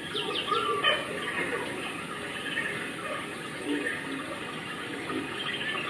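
Outdoor zoo ambience: a steady background hiss with indistinct, distant voices of people and a few short high chirps, most of them about half a second to a second in.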